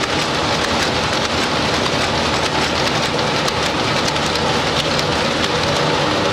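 Many belt-driven power looms running together in a weaving shed: a dense, steady clatter of rapid clicks.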